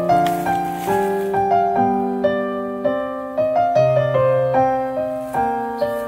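Background piano music: a light melody of plucked-sounding notes over held lower notes.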